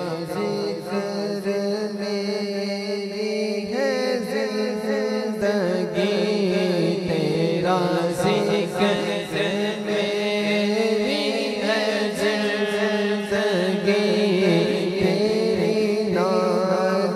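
Male naat reciter singing a devotional Islamic naat into a microphone, in a slow, ornamented chant-like melody with wavering held notes. A steady low drone sounds beneath the voice.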